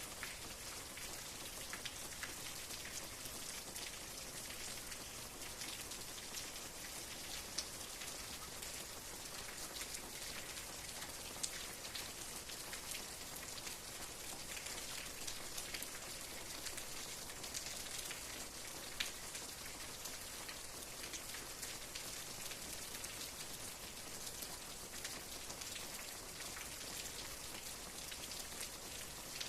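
Steady rain falling on a surface, an even patter with many fine drop ticks and a few louder single drops standing out now and then.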